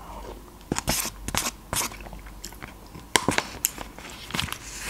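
Close-miked eating sounds: a spoonful of lentil soup taken and chewed, with sharp wet mouth clicks and smacks in clusters about a second in, again just past three seconds, and near the end.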